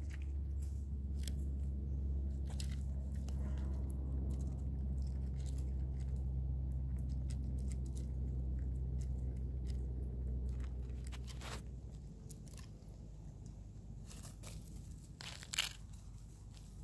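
Chipmunk cracking and chewing sunflower seeds from a metal bowl: a string of small sharp crunches and clicks. Near the end a few louder crackles come, like dry leaves being crunched.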